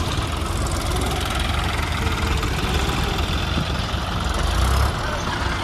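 A farm tractor's diesel engine running steadily at low revs, swelling slightly near the end.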